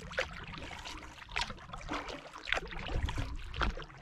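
Canoe paddle strokes in the water, a splash of the blade about once a second.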